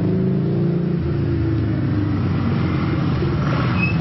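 Harley-Davidson V-Rod's V-twin engine running as the motorcycle rides up close and slows, its pitch falling gradually.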